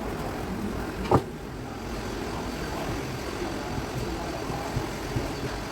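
Steady low background rumble, with a single sharp knock a little over a second in.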